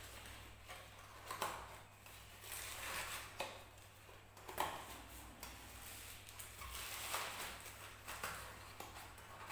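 Small cardboard boxes being handled, their top flaps and inner paper folded shut and tucked in: a few soft taps and paper rustles spread out over several seconds.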